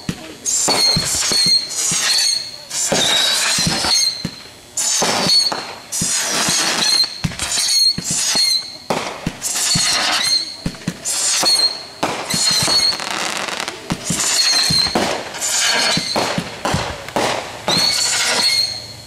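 Fireworks going off in quick succession: one whistle after another, each climbing briefly to a high pitch and holding, about one a second, over crackling and sharp pops.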